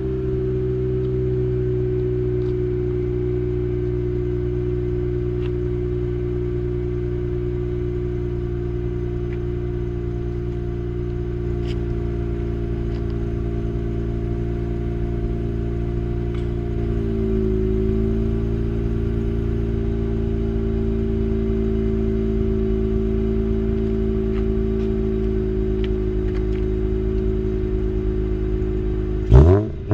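Mazda RX-8's two-rotor rotary engine idling steadily after a cold start, heard through an R-Magic aftermarket tuned silencer. The idle settles slightly lower about halfway through, and a quick sharp rev blip starts right at the end.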